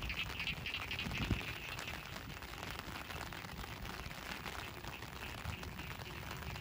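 Steady rain falling close to the microphone, a dense spatter of drops.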